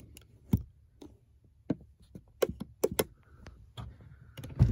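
A series of sharp plastic clicks and knocks from the 2021 Cadillac XT5's rear cabin trim being handled: the folding roof grab handle is pulled and let go, then the inside door release handle is worked. A heavier knock comes near the end.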